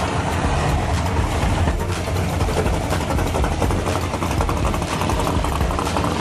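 A car engine idling, a steady low rumble.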